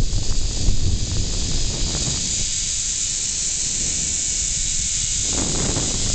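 Zipline trolley running fast along the steel cable with a steady high hiss, while wind buffets the microphone. The buffeting eases about two seconds in and picks up again near the end.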